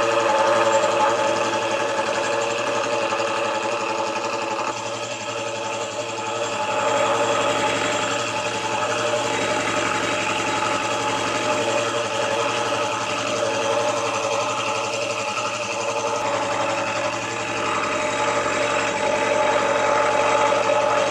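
Milling machine running, its disc-shaped involute gear cutter cutting a tooth to full depth in a 21-tooth gear blank held on a dividing head.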